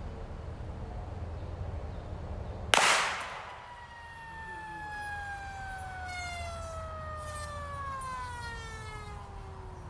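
A single shot from a Marlin Model 60 .22 rifle nearly three seconds in, then the punctured CO2 cartridge venting through the bullet hole with a long whistle like a train whistle. The whistle falls slowly in pitch over about seven seconds as the cartridge empties.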